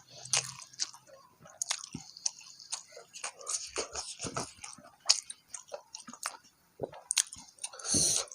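A person chewing a mouthful of food close to the microphone: irregular wet smacks and mouth clicks. A short, louder hissing rush comes near the end.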